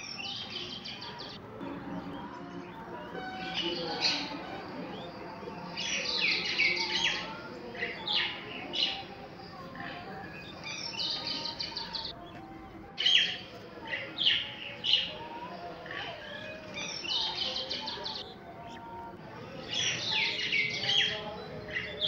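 Common mynas calling: bouts of rapid, high-pitched repeated notes, coming several times with short pauses between.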